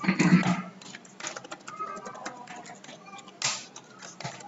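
Computer keyboard being typed on: a quick, uneven run of key clicks as a password is entered, with one louder keystroke about three and a half seconds in.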